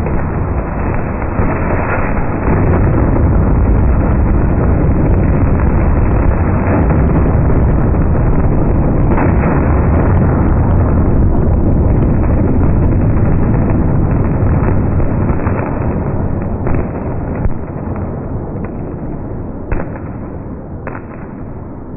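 Fireworks going off in an enclosed box: a dense, continuous rumble with scattered sharp cracks, fading gradually over the last several seconds.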